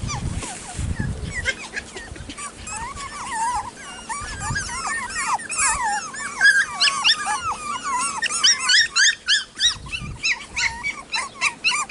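A litter of 6-week-old F1 cockapoo puppies whining and yipping: many short high-pitched squeaks overlapping each other, thickest over the second half, with a few dull thumps of movement near the start.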